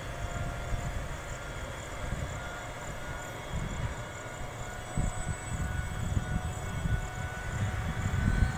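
Alstom WAG12 twin-section electric freight locomotive moving slowly past: a heavy low rumble with a faint steady whine above it.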